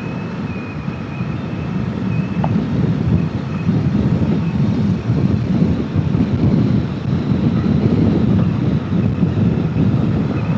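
Steady rush of wind and road noise from a motorcycle on the move, with engine noise underneath, growing a little louder over the first few seconds.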